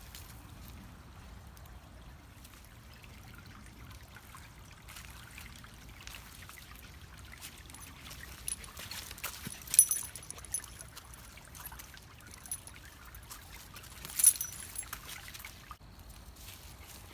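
Water trickling in a small creek, with two brief, sharp high-pitched sounds, one about ten seconds in and one about fourteen seconds in.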